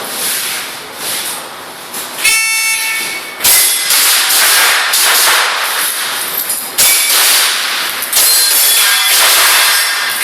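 An electronic shot timer's start beep, held for about a second, about two seconds in. It is followed by a run of airsoft pistol shots: sharp cracks and clatter that go on to the end.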